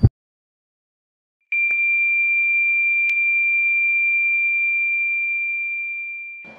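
Heart-monitor flatline sound effect: after a second and a half of silence, one continuous high-pitched tone begins, holds steady and fades away near the end, signalling that the heart has stopped.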